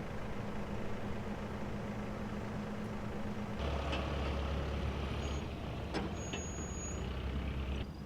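A vehicle or machine engine running steadily; about three and a half seconds in it turns deeper and stronger, with a sharp click about six seconds in and a brief high tone just after.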